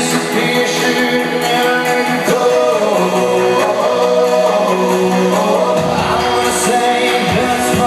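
A male pop vocal group singing live with a backing band, amplified through a large venue's PA; deep bass comes in about six seconds in.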